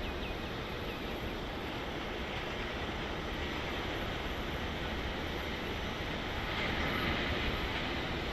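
Hawker 800XP business jet's twin turbofans heard at a distance as it taxis: a steady rush of jet noise that grows slightly louder near the end.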